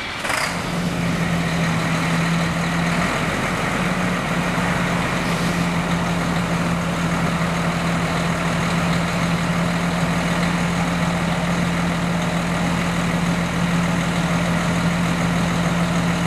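Fire truck's heavy diesel engine idling, a steady low drone that comes up about half a second in.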